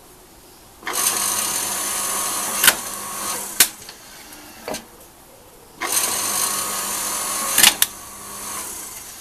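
Electric log splitter's motor and hydraulic pump running twice for about two seconds each, with a sharp crack near the end of each run as the wood splits into kindling. A few knocks of wood follow in the gaps between runs.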